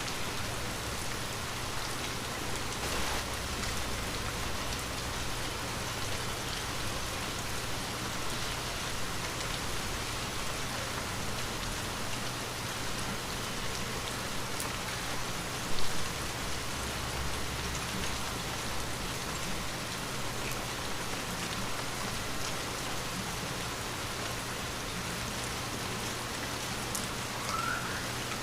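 Light rain falling steadily, with scattered single drops striking close by. A single louder knock about halfway through, and a short rising chirp near the end.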